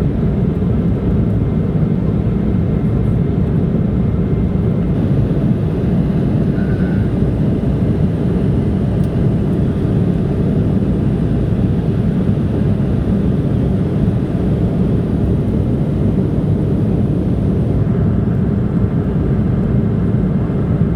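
Steady, loud cabin noise of an airliner in flight: jet engine and airflow noise with a deep rumble, unchanging throughout.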